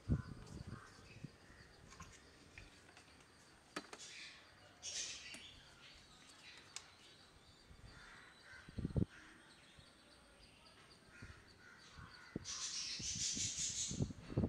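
Quiet handling on a workbench: a few soft knocks and clicks as a hot glue gun and small plastic servo-mount parts are picked up and set down, with short stretches of rustling hiss.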